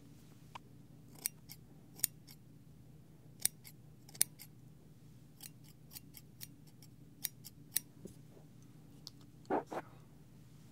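Barber's scissors snipping close to the microphone in single, irregular snips as a haircut begins, with two louder, duller strokes near the end.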